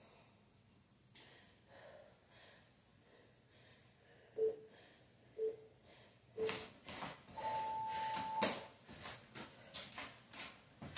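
Workout interval timer giving three short, low beeps about a second apart, then one longer, higher beep that signals the start of the next round. Faint breathing comes before the beeps, and sneakered feet land on the floor again and again, about two a second, as the jumping exercise starts.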